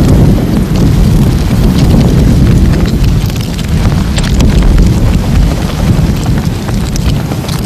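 Steady rain with a deep rumble of wind, loud and continuous, with scattered drops ticking through it.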